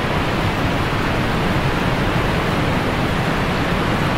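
Steady, loud rushing of a big waterfall, a continuous roar of falling water without a break.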